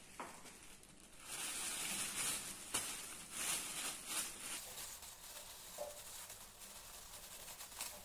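Clear plastic bag crinkling and rustling as it is handled and opened by hand. It is loudest from about a second in to about halfway, then goes on more softly.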